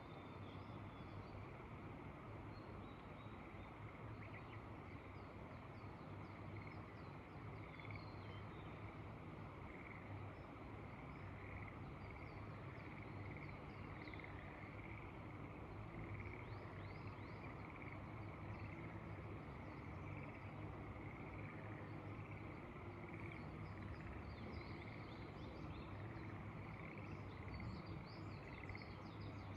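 A chorus of frogs calling steadily in a continuous pulsing trill, with small birds chirping in quick bursts that grow busier near the end, over a low steady rumble.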